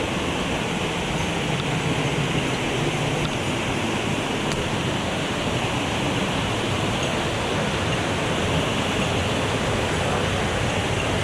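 Mountain stream rushing over rocks, a steady loud rush of water.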